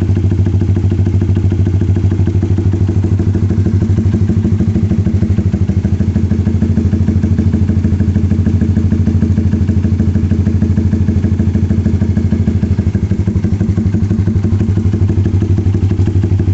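Honda Sonic 150R's single-cylinder four-stroke engine, fitted with a Juken 5 carburettor and a ported head, running at a steady speed through an SJ-88 aftermarket racing exhaust. The exhaust note is a loud, deep, bassy putter.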